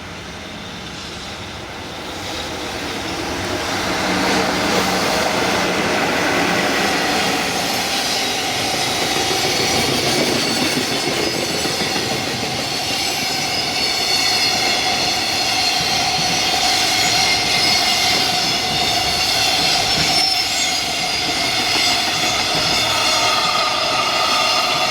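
Electric-locomotive-hauled freight train passing, its wheel noise building over the first few seconds and then staying loud, with steady high ringing tones over it.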